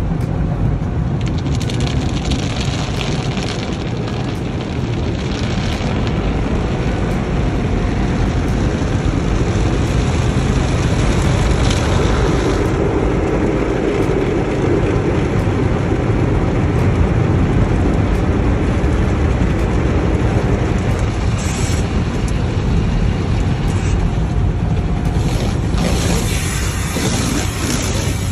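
Automatic car wash heard from inside the car's cabin: a steady, loud rush and rumble of the wash machinery and of water and foam pouring over the windshield and body. A hissier spray of water comes in near the end.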